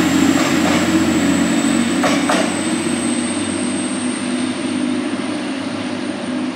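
Class 185 diesel multiple unit running as it moves away down the line: a steady engine drone with a thin high whine, both slowly fading. A couple of sharp wheel clicks about two seconds in.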